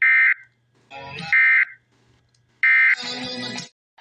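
Three short bursts of emergency-alert end-of-message data tones, a raspy digital warble about a third of a second each, a little over a second apart, signalling the end of the alert broadcast. Brief snatches of radio audio fall between the bursts.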